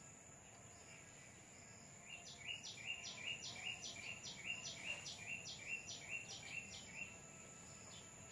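A bird calling a run of about fourteen short, evenly spaced notes, roughly three a second, over a steady high insect drone.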